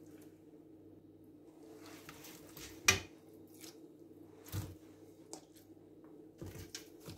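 Raw fish pieces being laid into a stainless steel pot over sliced vegetables: soft wet thuds, with one sharp knock against the pot about three seconds in and a few more light knocks later.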